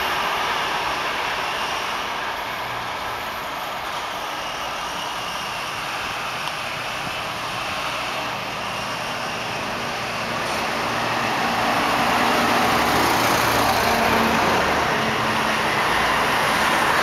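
Road traffic noise. A departing passenger train fades into it at the start, and a road vehicle's engine grows louder from a little past halfway.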